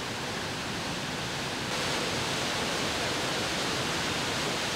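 Khlong Plu waterfall pouring down a rock face into its gorge: a steady rush of falling water, which gets louder about two seconds in.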